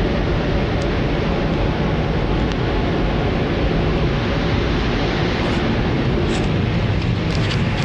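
Steady rushing hiss of compressed air as the EU06 electric locomotive's air reservoirs fill from a 9 bar supply.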